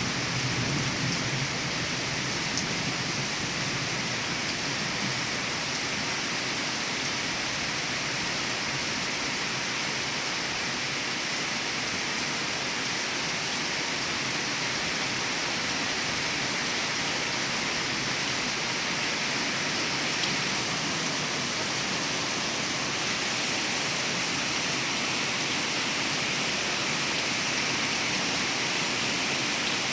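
Steady rain falling: an even, unbroken hiss with no pauses.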